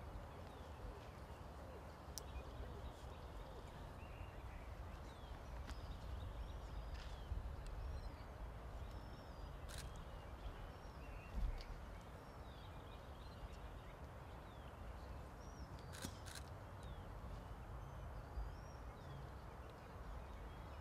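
Outdoor ambience of small birds chirping, short repeated chirps scattered throughout, over a low steady rumble. A few sharp clicks stand out, about two, ten and sixteen seconds in, the one at sixteen a quick double click.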